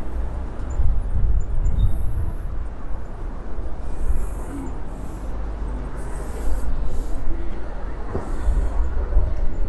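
City street ambience dominated by the steady low rumble of passing traffic, with brief hissing sounds and one short knock a little after eight seconds in.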